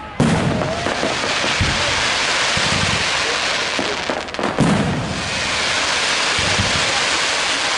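Fireworks display: a dense, continuous crackling and hissing of sparks and crackling stars, broken by several deep booms of shells bursting. The loudest booms come at the very start and a little past halfway.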